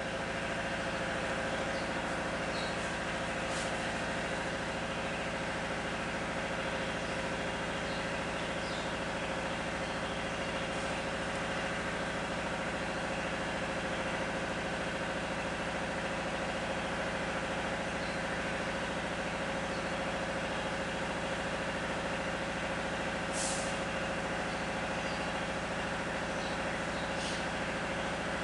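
Steady mechanical hum from a running machine, unchanging throughout, with a few faint short clicks.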